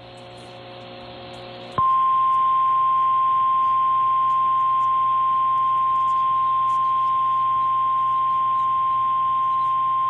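Emergency Alert System attention signal: after about two seconds of hiss and low hum, a single steady tone near 1 kHz starts abruptly and holds loud. It is the 1050 Hz NOAA Weather Radio warning-alarm tone that comes before the test message.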